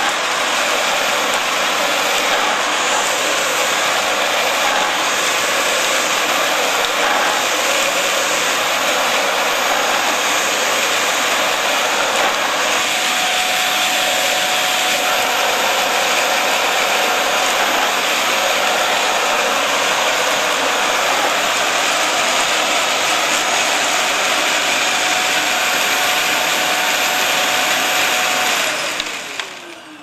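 Vacuum cleaner running steadily, a loud rushing noise with a high whine. Near the end the motor winds down, the whine falling in pitch as the noise dies away.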